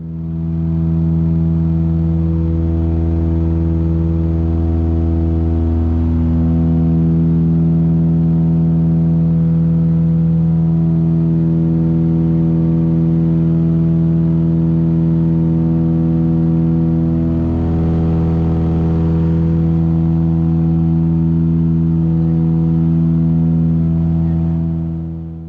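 Steady cabin drone of a Britten-Norman BN-2B-26 Islander in cruise, heard from a passenger seat: its twin Lycoming six-cylinder piston engines and propellers running evenly as a loud, low, pitched hum with a hiss above it.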